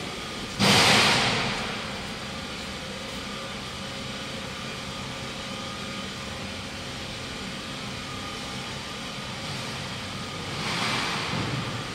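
Twin-shaft putty mixer humming steadily as its mixing head is lowered on its lift into the vessel. A sudden loud rushing noise comes about half a second in and fades over about a second, and a softer one rises and falls near the end.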